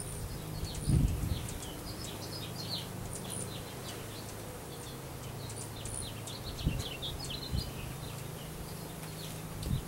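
Russian/Carniolan honey bees buzzing in a steady low hum around the hive, with many short bird chirps over them. A few low thumps, the loudest about a second in and more near the middle and the end.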